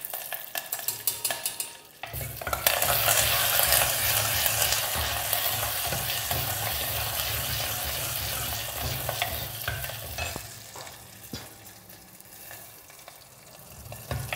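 Hot oil sizzling in a clay pot as curry leaves, dried red chillies and mustard seeds fry for a tempering, with a steel ladle stirring. Light ticking first, then a loud sizzle that starts suddenly about two seconds in and dies down after about ten seconds.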